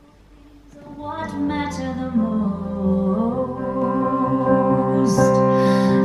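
BBC Radio 2 music playing through a Squeezebox player's speaker, coming in about a second in and growing louder over the next couple of seconds before holding steady.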